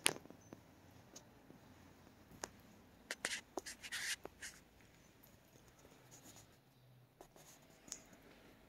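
Faint handling noise and footsteps of someone carrying a camera through a quiet room: a sharp click at the very start, scattered light clicks, and a cluster of rustling scuffs about three to four seconds in.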